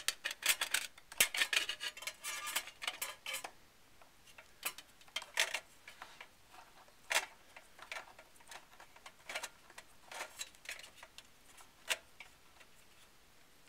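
Light metallic clicks and taps of a long hex screwdriver and small metal parts being worked on the processor screws inside a Power Mac G5. The clicks come thickly in the first few seconds, then singly about once a second.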